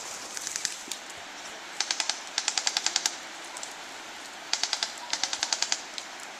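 Airsoft gun firing on full auto: two pairs of short rapid bursts of sharp snapping shots, about a dozen a second, the first pair about two seconds in and the second past the middle.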